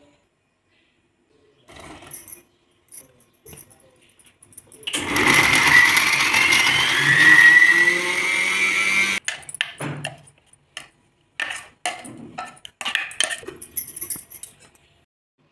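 Sujata electric mixer-grinder running for about four seconds, its motor whine rising in pitch as it spins up, then cutting off suddenly. Scattered clicks and knocks come before and after it.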